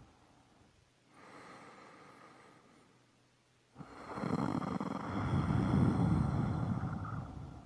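A person snoring: a quieter breath about a second in, then one long, loud snore that starts suddenly a little before halfway and lasts about three and a half seconds.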